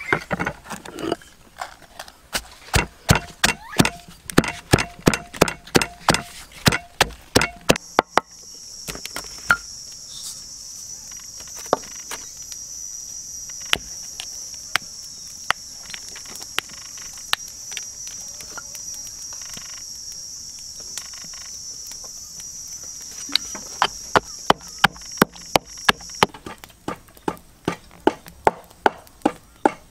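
Knife chopping on a cutting board, quick regular strokes about three a second, that stops after about eight seconds while an insect drones steadily at a high pitch; the chopping starts again near the end.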